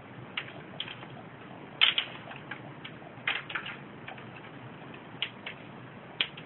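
Diamond doves pecking seed from a hand: irregular sharp beak taps and clicks, loudest in a cluster about two seconds in, with a few more scattered after.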